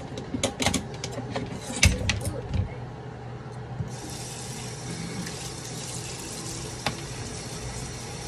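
A few sharp clatters of kitchen items, then a kitchen tap turned on about four seconds in, water running steadily into the sink, with one more knock near the end.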